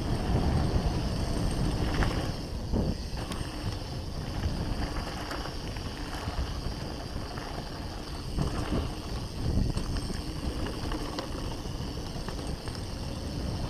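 Wind buffeting the camera microphone over the tyres of a hardtail Norco One25 dirt jump bike rolling fast down a dirt trail, with a few short knocks and rattles as it runs over bumps.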